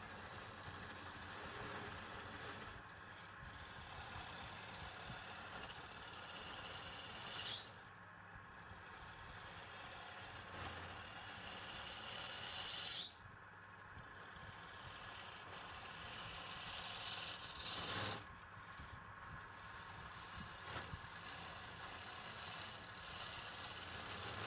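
A tool rasping and scraping across wood in long passes, each building for several seconds and then stopping abruptly, about three times.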